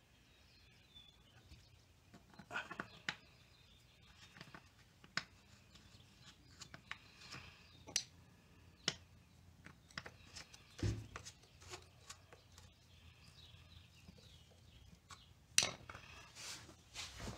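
Faint, scattered clicks, taps and scrapes of small metal parts and a screwdriver on the drive-belt cover of a Yamaha Riva 125 scooter as the round belt inspection cap is refitted. A duller thump comes about eleven seconds in, and the sharpest click comes a couple of seconds before the end.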